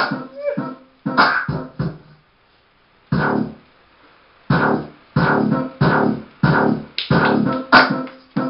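Dance music with a strong, regular beat. It drops out to near silence about two seconds in, gives a single hit about a second later, and picks up its steady beat again a little over four seconds in.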